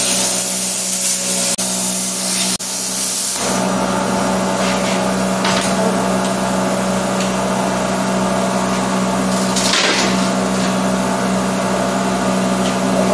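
Hobart plasma cutter slicing through 1/8-inch steel plate: a loud hiss of the air-plasma arc over a steady hum. The hiss is strongest for the first three and a half seconds, with two brief breaks, then eases while the hum carries on.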